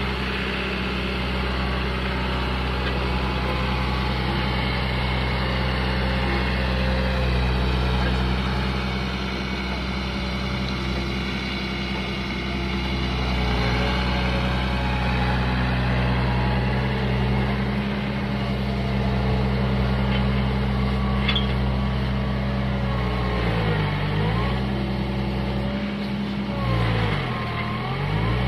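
Engine idling steadily close by. Twice near the end its note dips briefly and recovers, as if coming under load.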